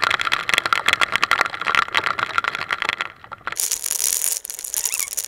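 Heavy rain and wind battering a motorcycle-mounted camera: a dense, rapid rattle of impacts for about three seconds, a brief lull, then a steady high hiss of wind and rain.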